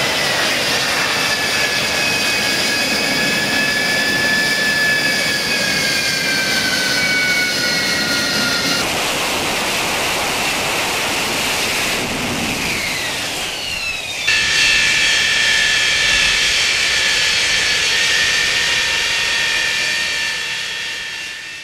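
AV-8B Harrier II's Rolls-Royce Pegasus turbofan running with a loud, high jet whine whose pitch sinks slowly over the first several seconds. After abrupt cuts about nine and fourteen seconds in, the whine carries on and holds a steady pitch.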